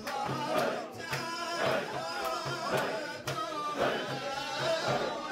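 Men chanting a Sufi zikr together, with a large frame drum beaten steadily at about two beats a second.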